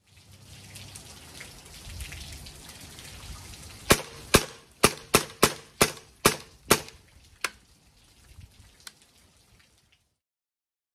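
Hatsan Invader .25 semi-automatic PCP air rifle firing a rapid string of about nine shots in under four seconds, each a sharp crack, after a few seconds of faint background hiss.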